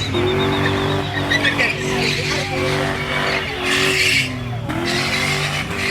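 BMW with a swapped-in Lexus engine spinning: the engine is held at high revs, holding a steady pitch with a few brief dips, while the rear tyres squeal.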